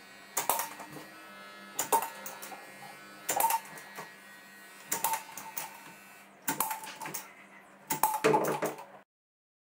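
Hand-pumped caulking gun squeezing silicone along a PVC ceiling edge: a sharp click of the trigger about every second and a half, over a faint steady hum. The sound cuts off abruptly about nine seconds in.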